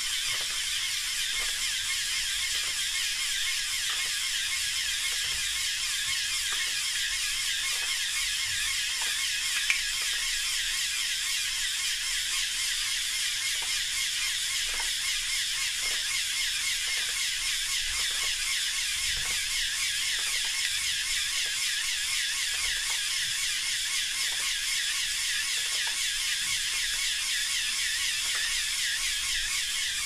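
Small LEGO Power Functions electric motors whirring steadily as they drive the fountain's pneumatic pump and jet mechanism, with faint regular clicks about once or twice a second and one sharper click about ten seconds in.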